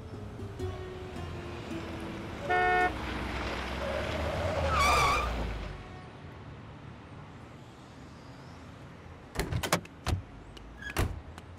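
Cartoon sound effects of a car pulling up: an engine running, a short honk about two and a half seconds in, a wavering squeal as the car stops, and the engine cutting off about six seconds in. Near the end come a few sharp knocks and clicks from the car door opening.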